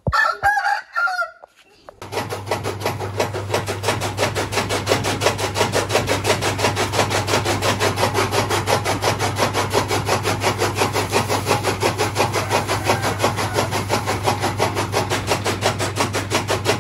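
A machine starts abruptly and runs steadily, with a fast, even clatter over a constant low hum.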